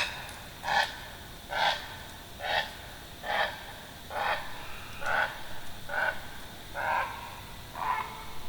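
An eerie, unidentified call: a short cry repeated steadily about once a second, about ten times.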